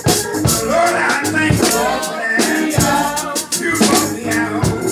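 Male lead vocalist singing gospel through a handheld microphone over live church music, with shaker-type percussion keeping the beat.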